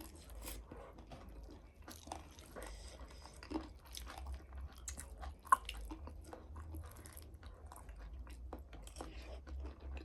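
A person chewing and crunching a mouthful of chatpate and noodles, with irregular small crunches and mouth clicks.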